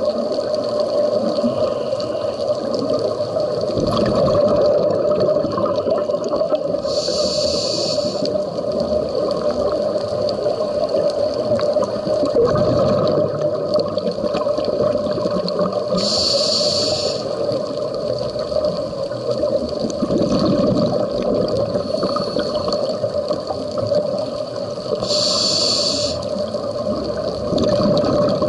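A scuba diver breathing through a regulator, heard underwater: a short hiss comes about every nine seconds, with a low rumble of exhaled bubbles between them, over steady underwater noise.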